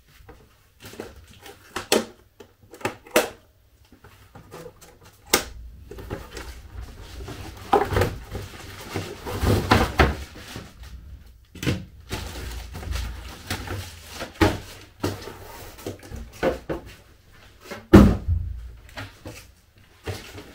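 Handling noises of an RC car being unpacked from its cardboard box: irregular taps, clicks and rustling, with one loud knock near the end.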